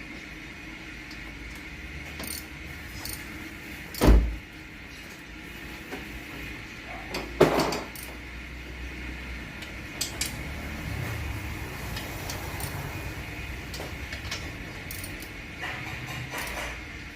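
Metal clatter of tools and parts being handled: two loud clanks, about four and seven and a half seconds in, and a few light clicks, over a steady low hum.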